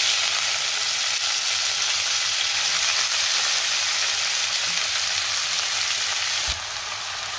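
Shredded cabbage sizzling in hot tempering oil in a kadhai: a loud, steady hiss that starts suddenly as the cabbage hits the oil and eases a little near the end.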